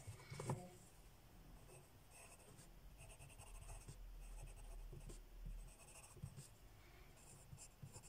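Pencil writing on a textbook page: faint, intermittent scratching strokes, with one light tap about half a second in.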